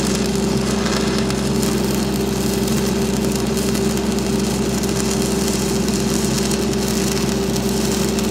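Stick welding with a 6010 electrode on unground galvanized steel: a steady crackling arc with a constant low hum beneath it.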